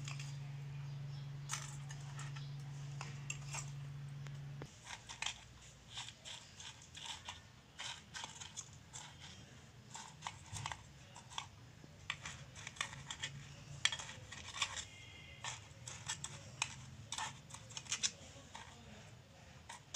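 Steel spoon tapping and scraping against a metal muffin tray as crushed Oreo crumbs are pressed into the cups, in faint, irregular clicks. A low steady hum cuts off suddenly a few seconds in.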